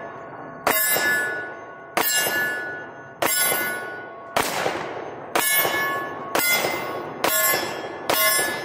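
Glock 20 10mm pistol fired eight times at a steady pace of about one shot a second, each shot followed by the ringing clang of a hit steel target plate fading away.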